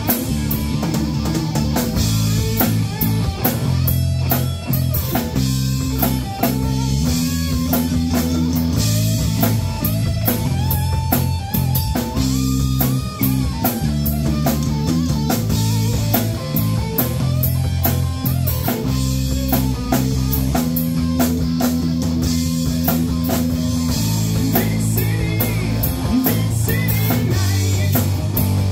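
Live rock band playing an instrumental passage: electric guitar lead lines over bass guitar and a drum kit with steady cymbal hits, no singing.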